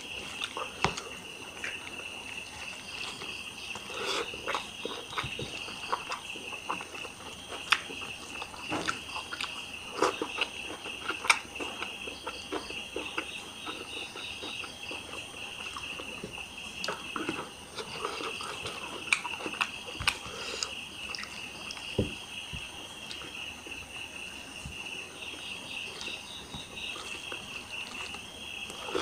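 Chewing, lip smacks and short clicks from a man eating rice with his hand, scattered irregularly, over a steady high chirping of insects.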